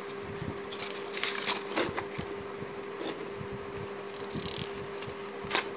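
Paper and card rustling and light clicks as a spiral-bound cardboard desk calendar is handled and its pages turned, with a sharper flick of a page near the end. A faint steady hum runs underneath.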